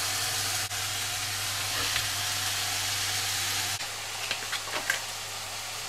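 Raw beef steaks sizzling steadily as they sear in a hot, dry non-stick frying pan with no oil or butter in it yet. The sizzle drops a little in level about four seconds in, with a few faint pops after that.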